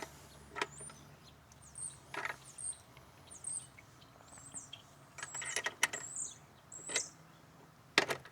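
Scattered metallic clicks and knocks of a wrench working a motorcycle's chain-adjuster nuts, a cluster a little past halfway and the sharpest knock near the end. Birds chirp in short high notes throughout.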